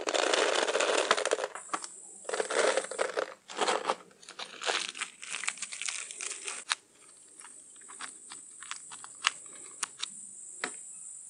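Aluminium foil crinkling and rustling as it is folded and crumpled into a packet around smoking wood pellets. Later come a run of short sharp clicks as holes are poked through the foil packet.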